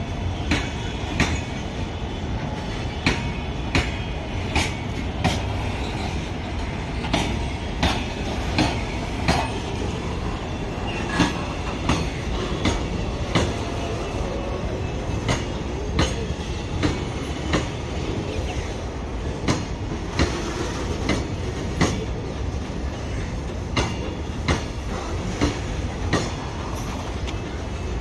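Loaded freight train rolling past, its wagon wheels clacking over rail joints in a regular rhythm, often in pairs about once or twice a second, over a continuous low rumble. Faint wheel squeal comes through in the first few seconds.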